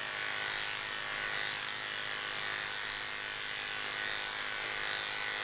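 Electric dog grooming clippers with a number 10 blade and a 13 mm magnetic extension comb running steadily as they take the bulk out of the coat down the dog's back.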